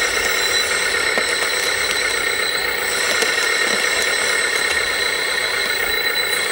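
Small electric motors and hydraulic pump of 1/14-scale RC construction machines running, a steady high-pitched whine with a few light clicks and rattles.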